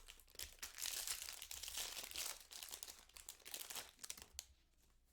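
Wrapper of a trading-card pack being torn open and crinkled, a dense crackling rustle for about four and a half seconds that stops near the end.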